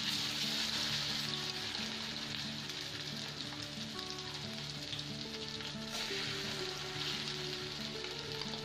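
Hilsa steaks coated in mustard paste sizzling steadily in hot mustard oil in a kadai. Background music plays over it.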